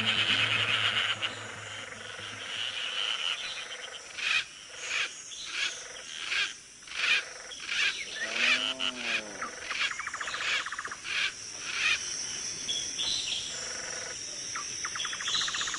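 Chorus of frogs and insects: a steady high insect whine with short buzzing trills, under a run of sharp repeated calls about two a second from about four to twelve seconds in. A single rising-and-falling call sounds midway.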